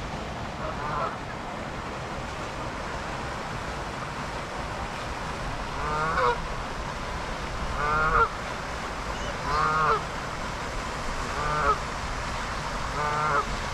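Canada geese honking: a faint call about a second in, then loud single honks roughly every two seconds from about halfway through, over a steady rushing background.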